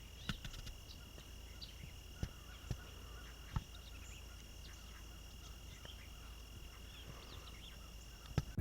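Faint forest ambience: a steady high-pitched insect drone, such as crickets, with a few soft ticks scattered through it.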